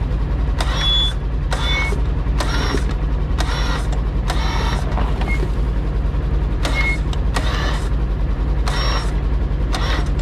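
An idling engine with a steady low rumble, broken about once a second by short bursts of higher-pitched noise.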